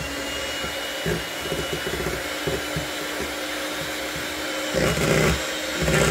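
Electric hand mixer running steadily, its beaters whirring through thick cream cheese batter in a stainless steel bowl, briefly louder about five seconds in.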